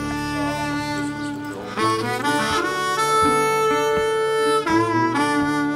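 Background music: a melody of long held notes on a reedy wind instrument.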